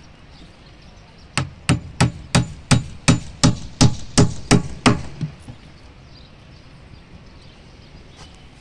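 Claw hammer driving a nail into a wooden column form: a run of about a dozen strikes, roughly three a second, starting just over a second in and stopping about five seconds in.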